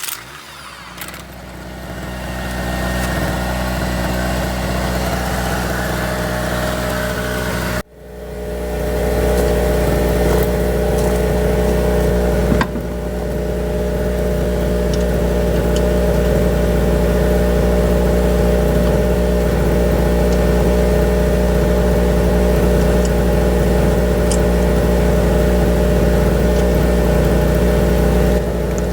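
Small two-stroke portable generator engine running steadily, its sound building over the first few seconds. It breaks off for an instant about eight seconds in, then carries on at an even pitch.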